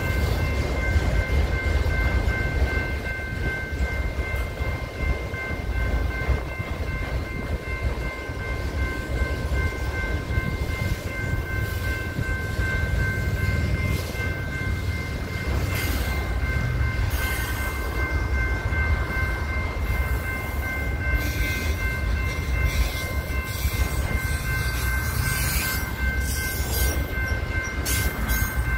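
Freight train of autorack cars rolling past: a steady low rumble of steel wheels on rail. Over it the grade-crossing warning bell keeps up a steady high ringing tone.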